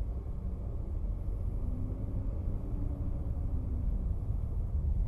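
Steady low rumble of a car's engine and road noise picked up by a dashcam inside the moving car, with a faint engine tone.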